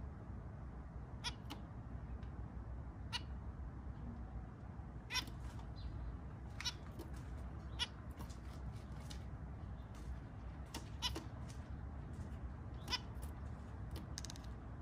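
Zebra finches giving short, nasal, beeping calls, a dozen or so spaced irregularly, over a steady low background rumble.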